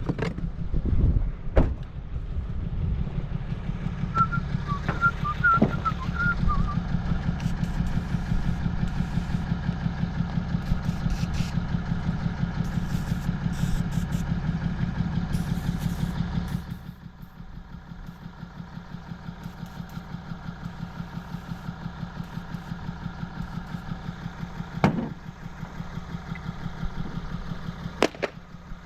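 A machine running with a fast, even pulse. It drops suddenly to a much quieter level about two thirds of the way through. A few short high squeaks come about five seconds in, and sharp clicks come near the end.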